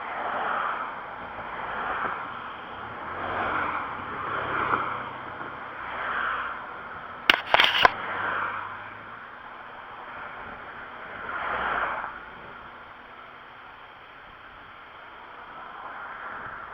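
Highway traffic going past in a series of whooshes, several in quick succession and then fewer. A brief sharp clatter about seven seconds in is the loudest sound.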